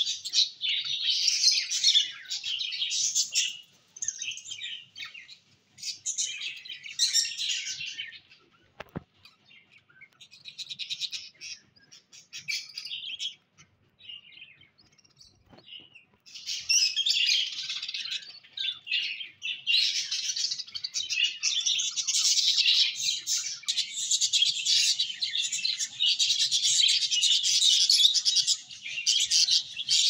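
Budgerigars chirping in a nest box: bursts of high chirps at first, a quieter stretch in the middle, then from about 17 seconds on dense, fast chirping that never lets up.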